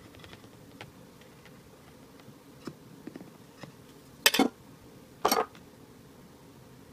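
Glass mixing bowl being moved: two loud clunks about a second apart as it is lifted off the cake and set down on the kitchen counter, after a few faint ticks of the knife against the cutting board.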